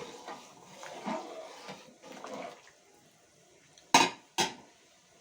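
A ladle stirring a pot of boiling water with whole spices, with soft scraping and clinking. About four seconds in come two sharp metal clanks half a second apart, the loudest sounds.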